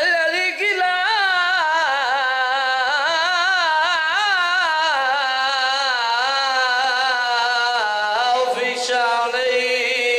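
A man chanting one long, ornamented line into a microphone, his voice wavering up and down as it slowly falls in pitch; a new phrase begins about eight seconds in.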